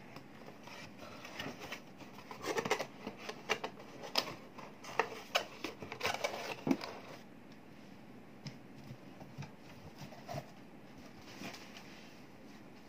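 Cardboard boxes being handled: flaps folded and boxes shifted across a wooden desk, a busy run of scrapes, taps and rustles for the first half, then only a few faint scuffs.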